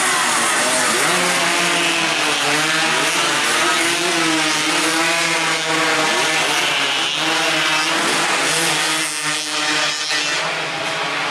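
Several two-stroke 116–125 cc underbone racing motorcycles at high revs, their engine notes rising and falling over one another as they race past.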